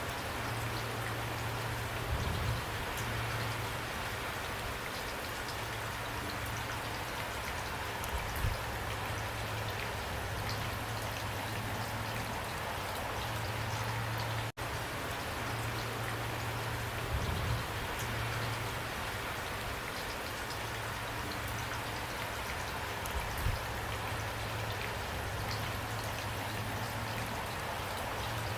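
Steady rain falling, an even patter with a faint low hum underneath and a few soft low thumps. The sound cuts out for an instant about halfway through, then carries on unchanged.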